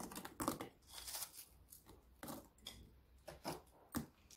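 Faint, irregular soft taps and rustles of crisp deep-fried bread pieces being dropped by hand into a plastic dish of pudding.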